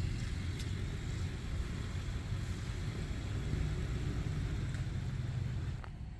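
Steady low rumble of a nearby tornado's roar; it drops in level abruptly near the end.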